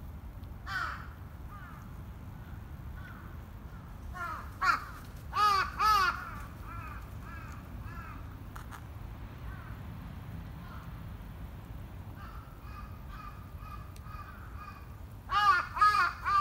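Crows cawing in bursts: a single caw about a second in, a loud run of harsh, arching caws around four to six seconds in followed by softer, quicker ones, and another loud run near the end.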